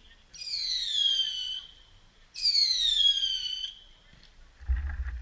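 Two whistling fireworks, each a high whistle of about a second and a half that falls in pitch and settles on a steady note, the second starting about a second after the first ends. A low thump follows near the end.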